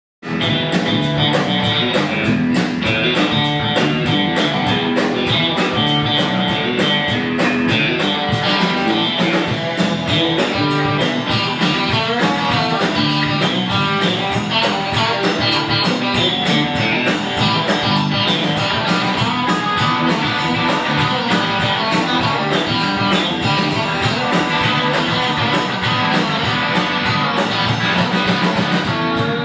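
Rock music played by a band: guitar over drums keeping a steady beat.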